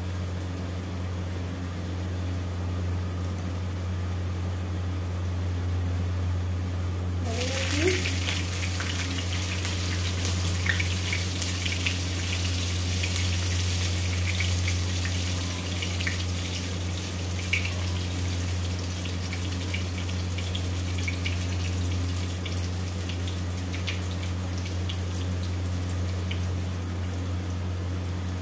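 Hot oil sizzling and crackling in a kadai as chopped green chilli is added to frying cumin seeds; the sizzle starts suddenly about seven seconds in and keeps going. A steady low hum runs underneath.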